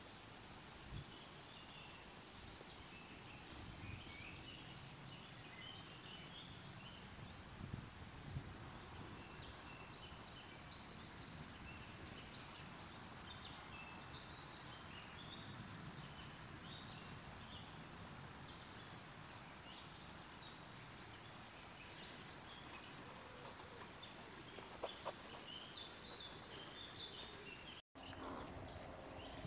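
Quiet outdoor ambience: a steady hiss with many short, faint bird chirps scattered throughout and a few soft low thumps.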